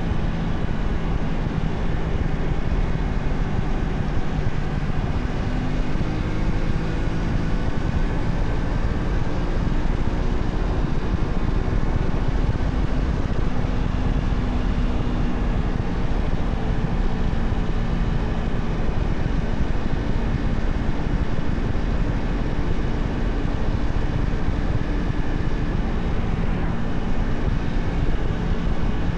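Honda Shadow 125's small V-twin engine running steadily under way, its pitch drifting gently up and down with small throttle changes, over a steady rush of wind and road noise.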